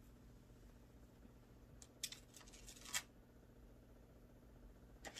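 Mostly near silence, with faint rustling and a few light clicks of items being handled about two to three seconds in, and again near the end.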